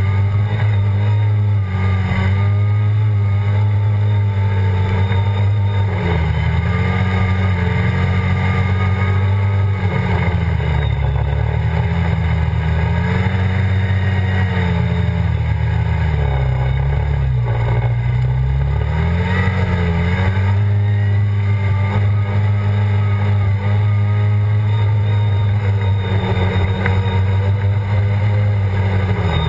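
ATV engine running hard at high revs, with its pitch dropping and climbing back several times in the middle as the throttle is eased off and opened again, then held high to the end.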